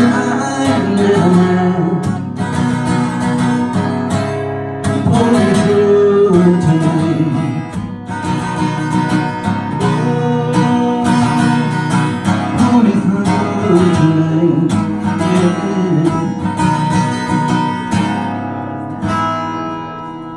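Acoustic guitar strummed live, with a voice singing along; near the end the playing stops and the last chord dies away as the song ends.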